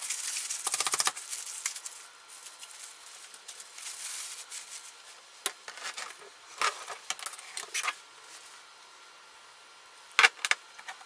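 Kitchen clatter of light metallic clinks and taps as utensils and dishes are handled. There is a dense rattle at the start, scattered clicks midway and a few sharp clinks near the end, which are the loudest.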